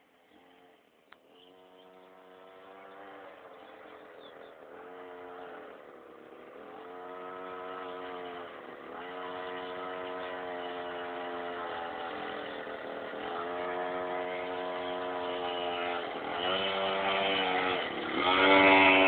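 Child's quad bike engine running, easing off and picking up again every few seconds, growing steadily louder and loudest near the end.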